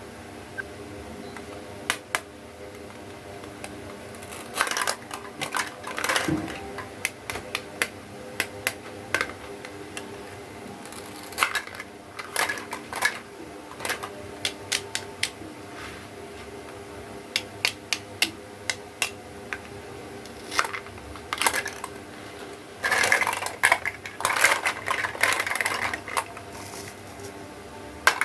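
Small hard plastic toy pieces being handled, tapped and set down: irregular sharp clicks and taps, with a couple of denser clattering stretches about two thirds of the way through.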